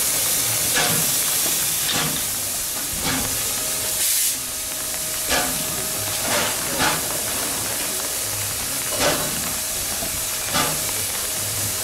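Steam hissing steadily from the small DSB F 441 steam tank locomotive standing still, with about ten short sharp bursts at irregular gaps of one to two seconds.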